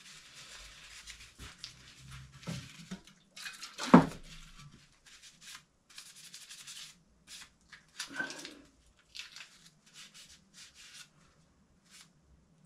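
Hands working on a clamped knife: rubbing, rustling and small clicks. There is a sharp knock about four seconds in and another short sound near eight seconds.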